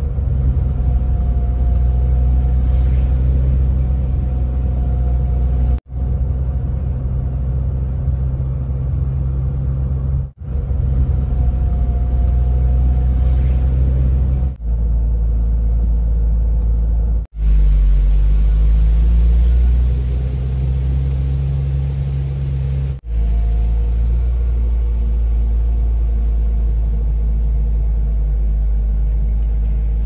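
Car cabin noise while driving: a steady low rumble of engine and tyres on the road, heard from inside the car. It drops out for an instant at several points.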